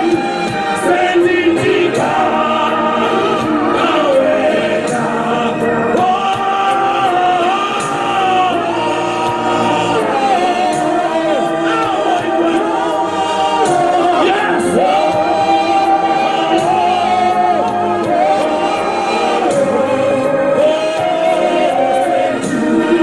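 A choir or congregation singing a gospel song together in long, held melodic lines, with a steady beat in the background.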